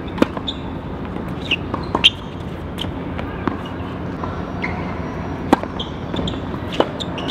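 Tennis balls struck by rackets and bouncing on a hard court: sharp hits a second or two apart, with short high squeaks of shoes on the court, over a steady background hum.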